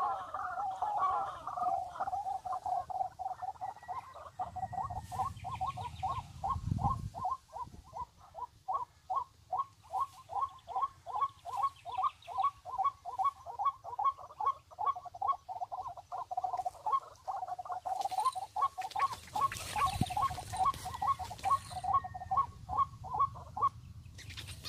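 An animal calling over and over in a steady rhythm, about two to three notes a second, sometimes running together into a warble. It stops shortly before the end. Brief low rumbles of handling or wind noise come a few seconds in and again later.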